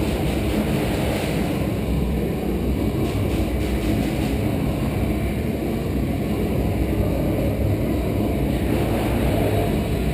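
Steady low rumbling noise with no distinct knocks, shots or voices.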